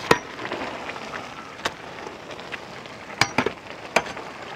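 A long metal ladle knocking and clinking against a large aluminium cooking pot while spiced rice is stirred, about five sharp knocks, over a steady hiss from the steaming pot.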